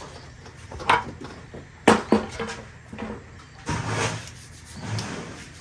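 A few separate knocks and clicks, with short scraping rubs in between, like wood or wire being handled.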